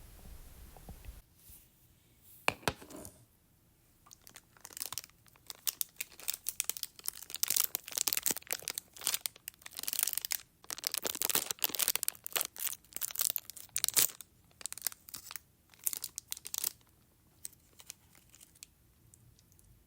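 Plastic fruit-snack packet being torn open and crinkled by hand, a long run of dense crackling from about four seconds in until near the end. A low stomach rumble fades out in the first second.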